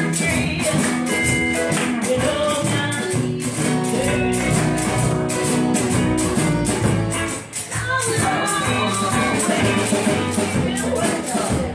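Live blues band playing: electric and acoustic guitars, bass and drums, with a steady beat of sharp high strokes and a brief drop in loudness about two-thirds of the way through.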